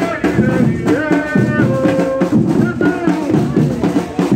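Afro-Brazilian carnival drumming: a bloco afro's tall hand-beaten drums and stick-beaten bass drums playing a steady, dense rhythm, with a held, wavering melody over it.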